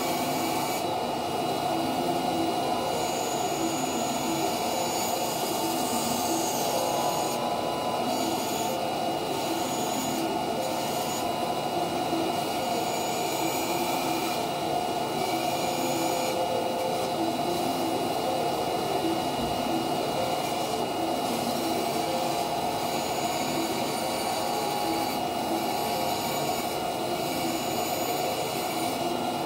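Bandsaw running steadily while a walnut board is fed through the blade, sawing it to shape: an even machine noise with a steady whine.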